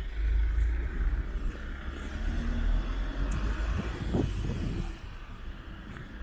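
Street traffic: a car going by close, with a low rumble and tyre noise that ease off about five seconds in.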